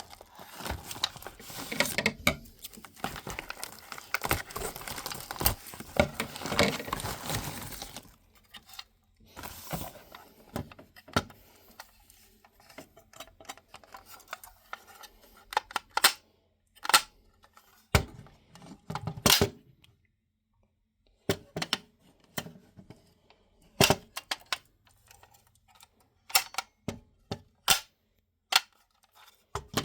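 Packaging being unwrapped, crinkling and rustling for several seconds, then scattered sharp clicks and knocks as it is handled.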